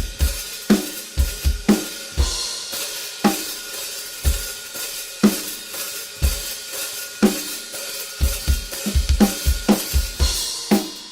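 Drum kit played in a steady groove to demonstrate Centent XTT cymbals: kick and snare hits under a continuous cymbal wash, with louder cymbal crashes about two seconds in and again near the end.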